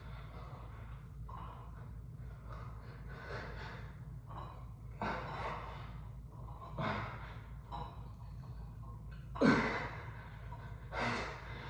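A man's hard, forceful breaths while lifting weights: four sharp exhales spaced about two seconds apart, the third the loudest, over a steady low hum.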